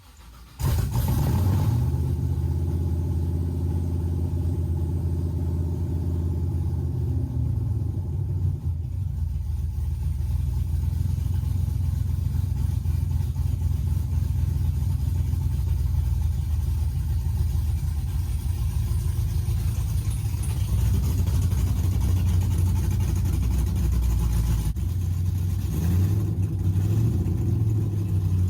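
A second-generation Chevrolet Camaro's engine running steadily, its sound changing a little near the end.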